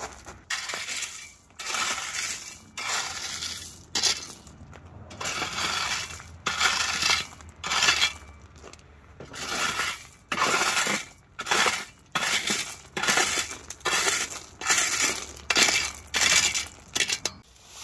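Crushed-stone track ballast being worked with a long-handled tool around small-gauge rails, the stones crunching and clinking in repeated strokes about one a second, with a few short pauses.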